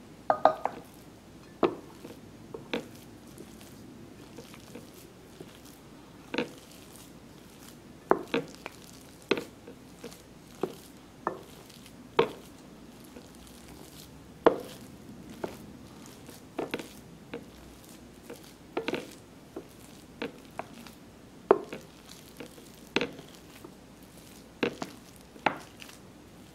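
Wooden spoon stirring and folding mashed potatoes in a glass bowl, with soft squishing and sharp knocks of the spoon against the bowl every second or two. A short metallic clink rings just after the start as the stainless pot is set down.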